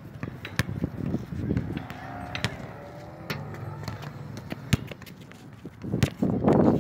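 Basketball bouncing on an outdoor hard court: several sharp thuds at uneven intervals.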